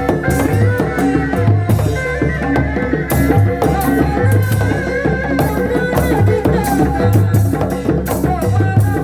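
Sundanese kuda lumping / reak ensemble playing: drums keep a steady beat under a wavering, reedy melody line, with rattling percussion throughout.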